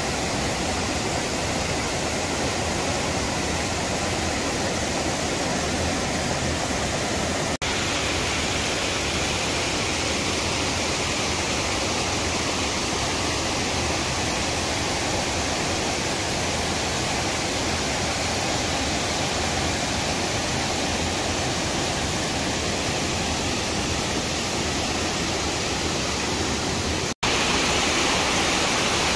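Catrigg Force, a waterfall with a drop of about six metres, rushing steadily. The sound cuts out for an instant twice, about a quarter of the way in and near the end, at joins in the recording.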